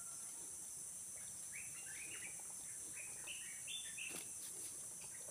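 Small birds chirping in short, rapidly repeated calls over a steady high-pitched insect drone, with a couple of faint clicks a little after four seconds in.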